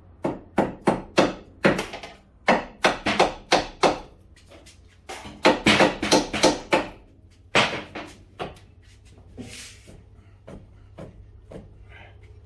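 Hammer blows driving a new CV axle into place, in three quick bursts of five or six strikes, about three a second, then a few single knocks and lighter taps near the end.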